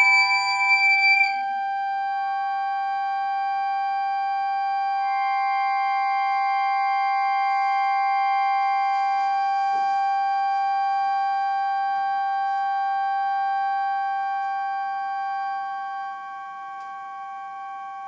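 Recorder and button accordion holding a long, steady chord of high, close-spaced tones in contemporary chamber music. The loudest, highest tones break off about a second in. The rest of the chord holds, then thins out and fades near the end.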